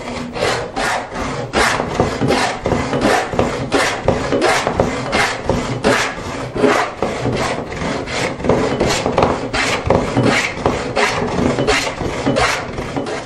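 Plow plane cutting a groove along the edge of a board in quick, short, choppy strokes, about three a second, each a rasping scrape of the iron through the wood. The cut is finished at the far end first and then worked gradually back along the board.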